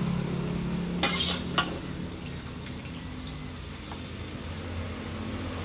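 Stir-fried water spinach sizzling in an aluminium wok as it is scooped out with a metal spoon, with a couple of sharp scrapes of the spoon against the wok about a second in.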